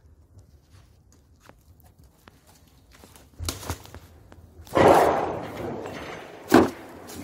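Footsteps and scuffs on rough ground. Faint clicks at first, then a few knocks, a loud scraping rustle about five seconds in that fades slowly, and another sharp scuff near the end.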